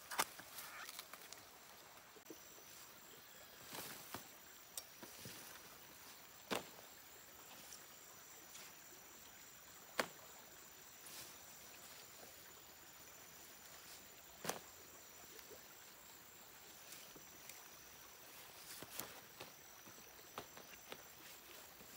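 Quiet outdoor ambience: a faint, steady high-pitched insect buzz, with a sharp click or snap every few seconds.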